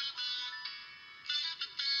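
A Samsung GT-C3010 mobile phone ringtone playing: a quick synthesized melody of bright, thin notes with no bass, out of the phone's small loudspeaker. It dips softer about halfway through, then the notes come back.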